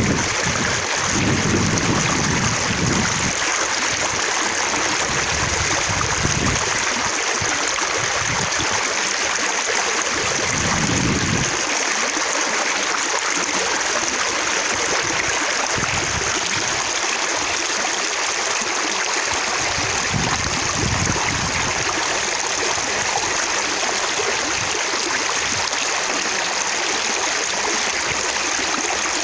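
Water running and splashing steadily, droplets spattering, in a constant rush.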